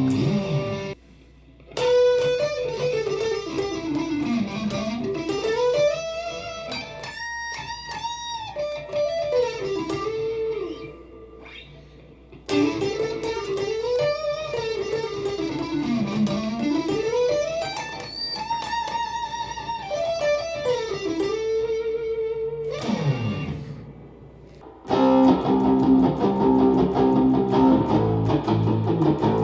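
Electric guitar through a software amp simulator on a crunch, medium-gain tone, playing a single-note lead phrase with sliding and bending notes, the same phrase twice over after a brief pause about a second in. Near the end it switches to chugging low chords.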